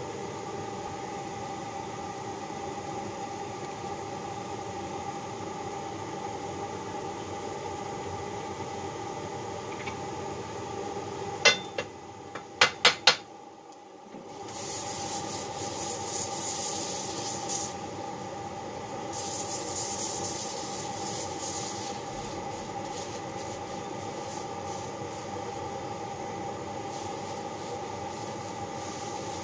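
A steady workshop hum with a few held tones. About twelve seconds in come four sharp metal knocks, then two stretches of hissing lasting several seconds each.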